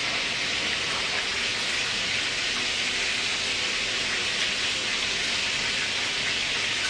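Steady, even hiss that does not change.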